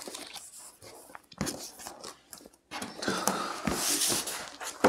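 Handling noise of sticker sheets: several light clicks and knocks, then a longer rustle of sheets sliding and being moved from about three seconds in to near the end.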